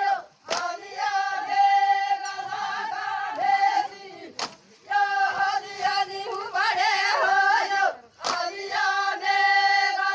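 Voices singing a traditional folk song in three long phrases of held notes, with short breaks between them.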